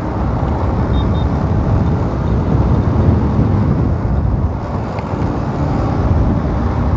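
Riding a motorcycle along a road: the bike's engine running steadily under wind and road noise on a bike-mounted camera.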